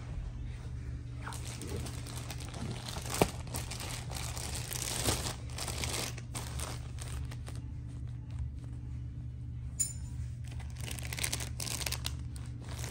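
Clear plastic packaging bags crinkling and rustling as they are handled, with one sharp click about three seconds in, over a steady low hum.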